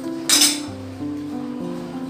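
Background instrumental music with a melodic tune. About a third of a second in comes a short metallic clatter of a metal cooking pot being handled.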